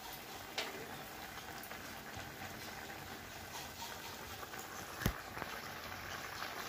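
Spicy vada curry bubbling and simmering in a pan on the stove, a steady hiss of boiling liquid. A sharp tap about half a second in and a louder knock about five seconds in.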